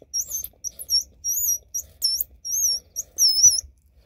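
Squirrel call made by sucking air across a folded lemongrass leaf with its two ridges overlapped: a rapid string of about a dozen high, wavering squeaks.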